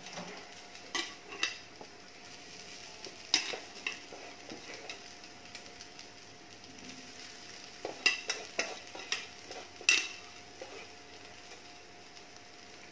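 Wooden spatula stirring and turning steamed rice into fried masala in a metal kadhai, knocking and scraping against the pan in clusters, about a second in, around three to four seconds, and again around eight to ten seconds, over a faint frying sizzle.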